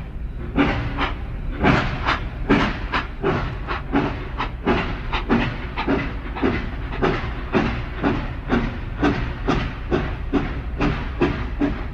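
Steam locomotive chuffing at a steady pace, about three to four exhaust beats a second, over a constant low rumble.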